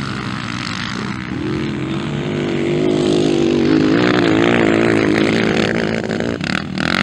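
Motocross bike's single-cylinder engine revving up and down as the rider works the throttle through a dirt-track turn, the revs climbing about halfway through.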